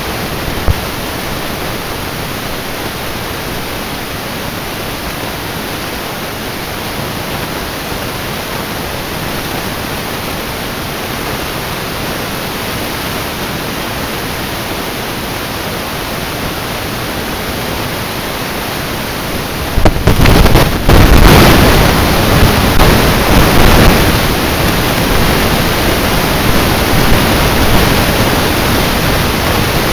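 Steady wind rushing over the microphone, turning into heavier, gusty buffeting about twenty seconds in.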